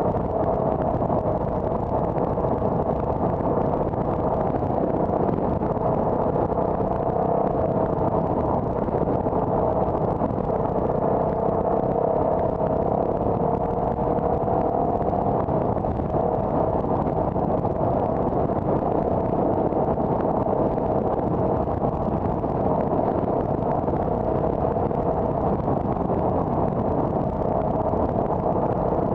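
Steady road and engine noise of a car being driven, with a hum that drifts slowly up and down in pitch.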